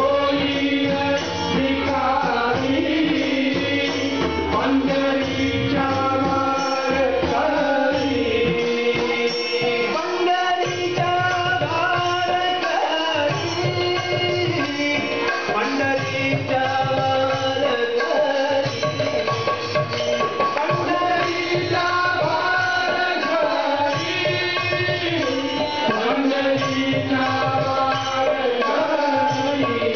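A Marathi devotional abhang sung by a bhajan group, with harmonium carrying the melody over steady hand-drum strokes.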